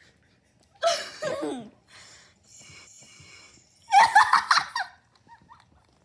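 People laughing in bursts: once about a second in, then more loudly about four seconds in, with quieter breathy laughter between.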